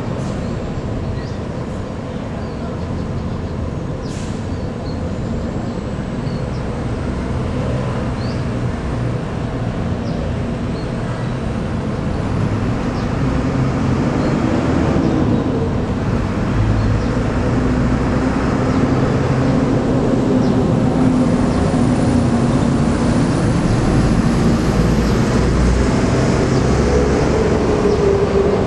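Diesel bus engine running, getting louder from about halfway through as it comes closer, with a faint high whine above the rumble.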